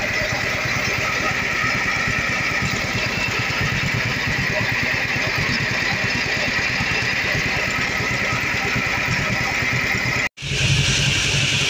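A 1948 John Deere B's two-cylinder engine runs steadily, driving a belt-driven buzz saw whose blade spins freely without cutting. Over the engine's even low pulsing sits a steady high hum. The sound drops out briefly near the end.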